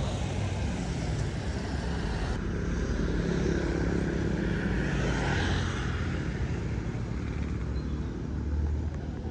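A motor vehicle engine running steadily at low pitch, a little louder around the middle.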